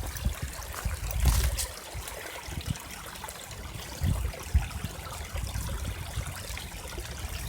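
Small rain-fed stream trickling and running steadily, with a few brief low rumbles along the way.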